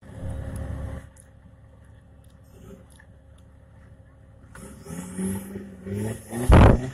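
Off-road buggy's engine revving in short bursts in mud. Low rumble at the start, and a loud low blast near the end.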